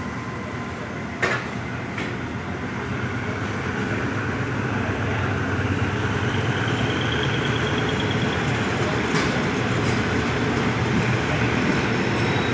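Rapid passenger train running along the line, a steady rumble of wheels on rails that grows slowly louder, with a sharp knock about a second in and lighter knocks about two seconds in and near the end.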